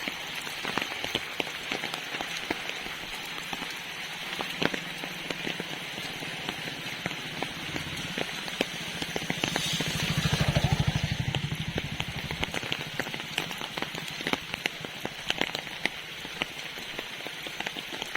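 Steady rain, with heavy drops clicking sharply on an umbrella overhead. About halfway through, a low rumble swells for two seconds or so and fades.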